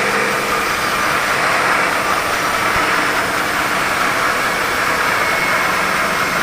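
Sawmill saw running steadily through a mahogany log, a loud even machine noise with a faint high whine coming in over the second half.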